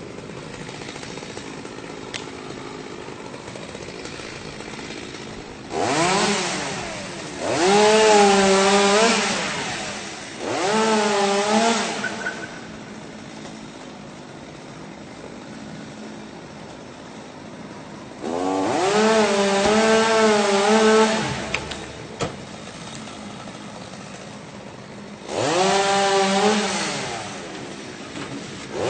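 Two-stroke chainsaw idling, then revved up in four bursts of a few seconds each. In each burst the engine pitch sags and recovers as the chain bites into the tree, then it drops back to idle between cuts.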